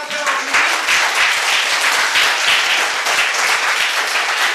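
A hall full of children and an adult clapping at once: dense, sustained applause of many hands.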